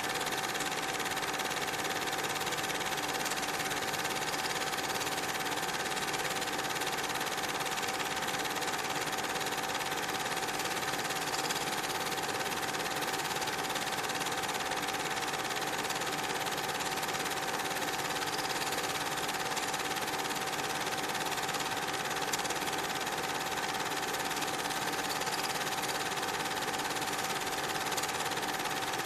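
A small machine running steadily, a whirr and hiss with a constant high hum that does not change.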